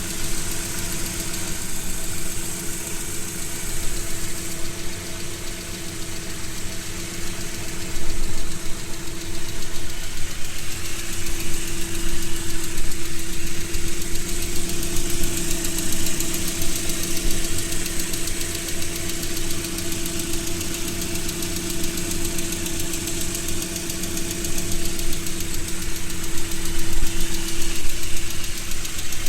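ZMZ-406 2.3-litre inline-four petrol engine idling from cold with a steady knock running through it, the cold-engine knock it is being recorded for. It gets a little louder about eight seconds in.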